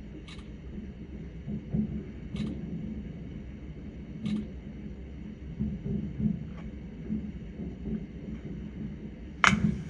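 Distant fireworks going off: a few sharp cracks roughly two seconds apart over low thudding booms and rumble, with the loudest crack near the end.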